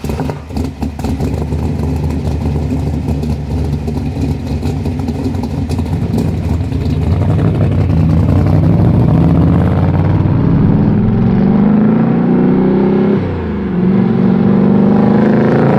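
Big-block Boss 9 V8 of a 1969 Ford Mustang, bored to 521 cubic inches, running hard as the car drives. It grows louder about halfway through and dips briefly near the end before pulling again.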